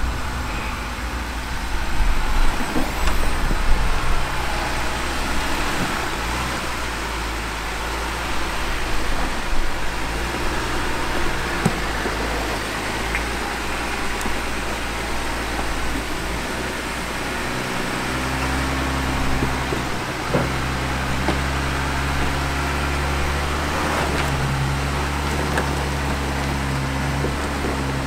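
Jeep Gladiator's V6 engine running at low revs as the truck crawls over rock ledges, with occasional clicks and crunches of its big tyres on the rock. The engine note grows louder about two-thirds of the way through.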